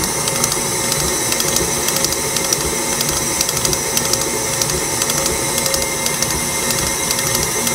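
KitchenAid stand mixer running steadily at medium-high speed, its flat beater churning a thick, sticky gum-paste mixture in the steel bowl.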